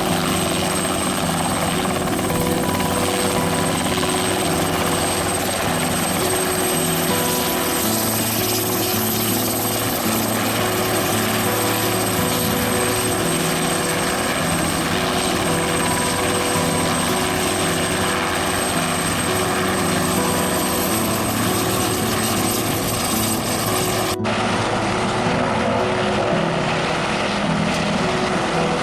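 Helicopter running with a steady, loud, unbroken engine and rotor noise.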